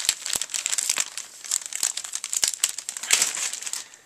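Motherboard's anti-static plastic bag crinkling and crackling as it is handled and opened, busiest in the first half with another flurry about three seconds in, dying away near the end.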